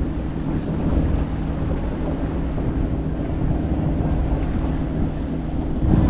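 Steady low drone of a fishing boat's engine passing, with wind buffeting the microphone.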